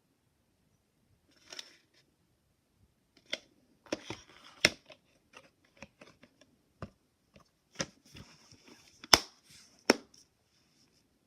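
Handling noise from a VHS tape and its plastic case: scattered clicks and short rustles, with the sharpest clicks about four and a half, nine and ten seconds in.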